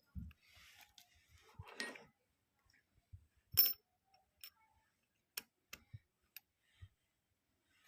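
Scattered clicks and light knocks of metal parts being handled during work on a Juki LK-1850 bartack sewing machine's clutch, the loudest a sharp ringing metallic click about three and a half seconds in.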